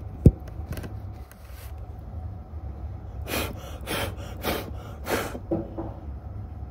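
A low thump just after the start, then four short puffs of breath blown into a reflector telescope's open tube onto its mirror, to clear dust off it.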